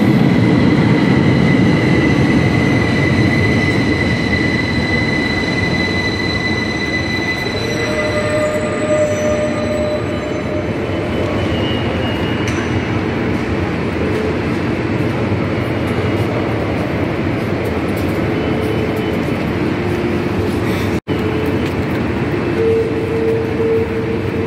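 Metro train running in an underground station: a loud, steady rumble with a thin high squeal that fades away over the first several seconds. Near the end a short pulsing tone sounds.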